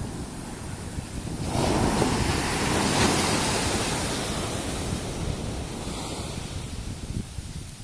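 Ocean surf: a wave breaks about a second and a half in and washes up the beach, fading over several seconds. Wind rumbles on the microphone.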